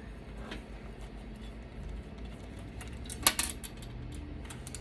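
Metal computer parts being handled, from a hard drive freshly slid out of its caddy: a sharp metallic clank a little over three seconds in, with lighter clicks before and after.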